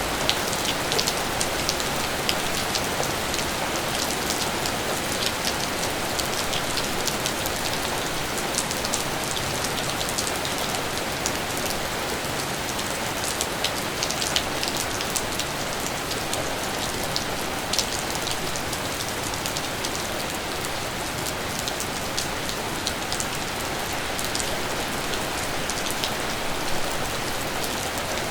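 Steady rain, an even hiss with many sharp ticks of drops striking surfaces.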